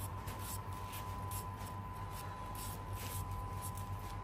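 Pot of Khmer sweet braised fish head simmering down to reduce its sauce: faint irregular crackling and ticking over a steady low hum.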